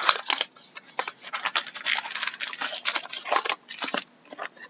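A small cardboard box of trading cards being torn open and its foil-wrapped card packs pulled out: a steady run of irregular crinkling, tearing and rustling.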